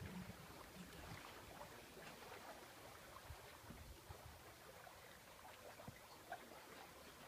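Near silence: faint water lapping and trickling along a sailing yacht's hull, with a few faint scattered ticks.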